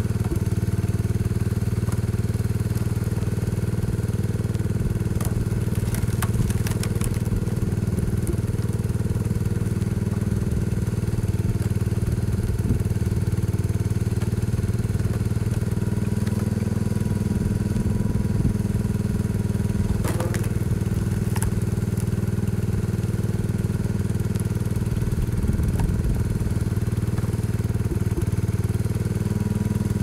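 1975 Case 224 garden tractor engine running steadily, driving a homemade hydraulic log splitter. A few sharp knocks of firewood being split and tossed come about six seconds in and again about twenty seconds in.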